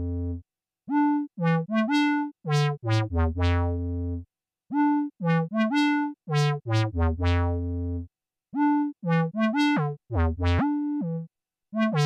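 Eurorack modular synthesizer playing a sequenced melody of short, bright pitched notes, each sliding up into its pitch at the start and cutting off sharply. The phrase repeats about every four seconds, with short silent gaps between repeats.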